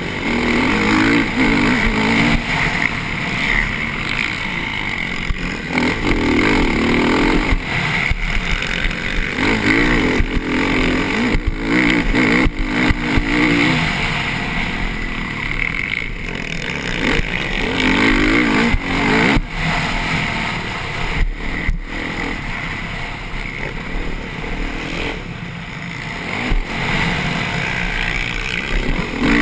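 Motocross bike engine at race pace, heard up close, revving up and dropping back over and over as the rider accelerates out of turns and shifts, over a steady rushing hiss. A few sharp knocks from the bike over the rough track.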